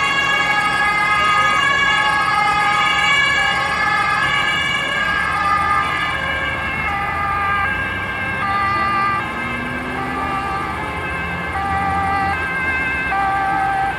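German emergency-vehicle two-tone siren (Martinshorn) sounding over road traffic, alternating steadily between a high and a low note. It gets a little quieter after about six seconds.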